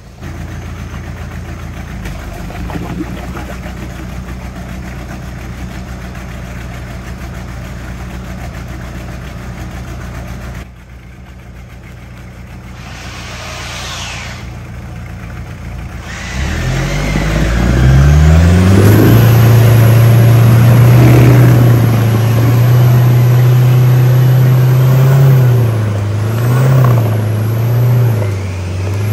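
Toyota 4x4 pickup's engine running steadily at low revs, then a little past halfway revving up sharply and held at high revs under load as the truck climbs a muddy, rutted trail, its pitch rising and dipping near the end.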